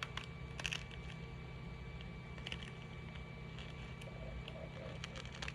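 A soft 3D-printed shoe being pried and peeled off the printer bed: scattered small clicks and crackles, a sharper cluster about a second in, over a steady low hum.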